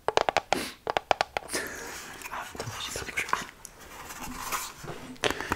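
Quiet, breathy laughter held back in a hush, after a quick run of soft clicks or taps in the first second and a half.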